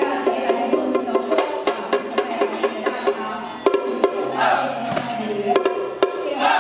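Taiwanese temple-troupe percussion band of drum, gongs and cymbals playing a fast, steady beat, with a ringing tone underneath the strikes.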